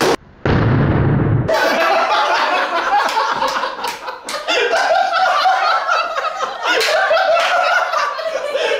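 A loud bang about half a second in, lasting about a second, then a group of people laughing and talking over each other.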